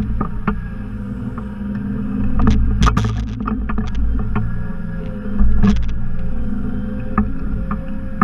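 Simplicity Legacy XL 4x4 garden tractor's engine running steadily under load, with scattered sharp knocks and clanks over it, several in quick clusters.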